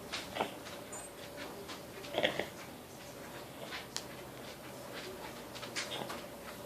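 Light, scattered clicks and taps of a spoon against a yogurt cup as a small child feeds herself, with one short vocal sound from the child about two seconds in.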